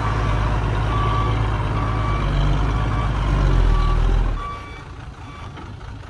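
A dump truck's reversing alarm beeping steadily, a little under twice a second, over the truck's diesel engine working hard. About four seconds in the engine drops off to a much quieter run while the beeping carries on faintly.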